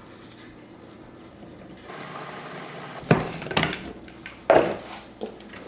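Kitchen clatter: a few sharp knocks and clinks of utensils and dishes, heard about three times in the second half.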